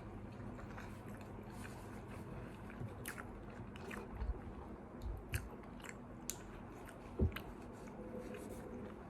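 A person chewing and biting food, with scattered short crisp crunches and clicks over a steady low hum.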